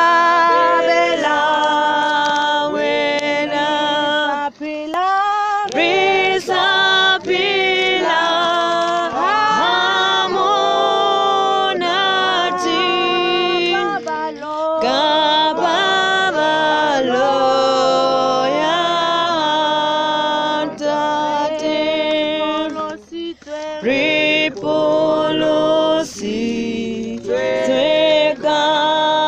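A group of men and women singing together unaccompanied, several voices in harmony on long held notes, with brief pauses between lines.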